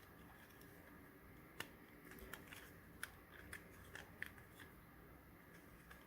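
Faint, scattered clicks and ticks of small plastic parts and wiring being handled, about half a dozen between roughly one and a half and four and a half seconds in.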